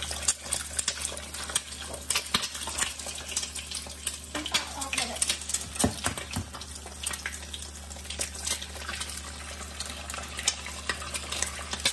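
Eggs frying in hot oil in a nonstick wok: a steady sizzle full of fine crackling spatters, with a few louder knocks past the middle.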